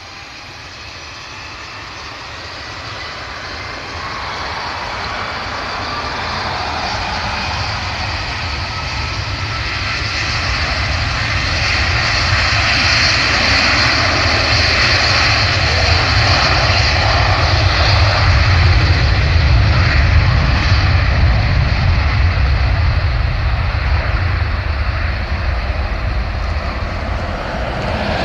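Twin-engine jet airliner at takeoff power on its takeoff roll. The engine noise builds steadily, with a faint changing whine early on, and is loudest about two-thirds of the way through as the aircraft passes, then eases slightly.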